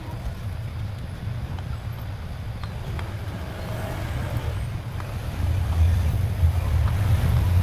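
A steady low rumble, louder from about two-thirds of the way in, with a few faint ticks over it.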